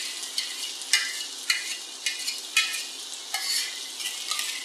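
Oil sizzling steadily in a frying pan of chopped green bell pepper as masala paste is spooned in from a mixer jar, with several short scrapes and taps of the spoon.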